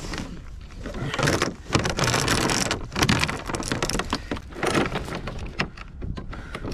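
Anchor warp and chain hauled hand over hand out of the sea over the side of a kayak: water splashing and dripping off the line, with irregular clinks and clanks of the metal chain links.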